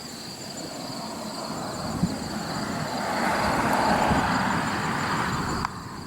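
A vehicle passing on the road, its tyre and engine noise swelling to a peak about four seconds in, then easing and cutting off suddenly near the end. Insects trill steadily underneath.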